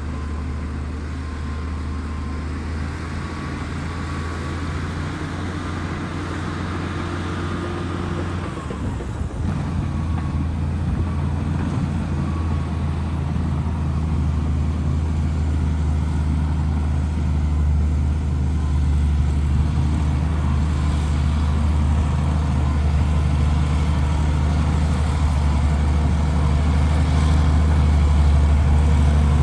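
Heavy diesel engine of earthmoving machinery running steadily with a deep, even hum. Its note shifts briefly about eight or nine seconds in, and it grows gradually louder toward the end.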